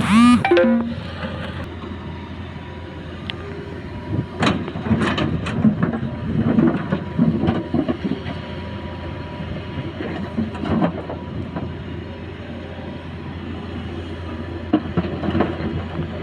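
Excavator working: its diesel engine running steadily, with a stretch of clanking and squealing metal from about four to eleven seconds in and a few more clanks near the end.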